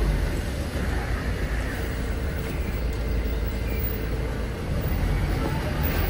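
Steady low rumble of a city bus's engine and tyres heard from inside the passenger cabin, with a faint steady hum joining about two seconds in.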